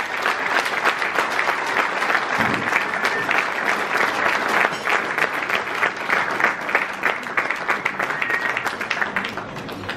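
An audience applauding, a dense patter of many hands clapping that eases off slightly near the end.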